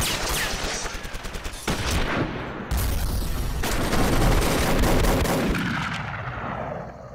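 Rapid automatic gunfire: many shots in quick succession for the first two seconds, then a dense continuous volley that fades away near the end.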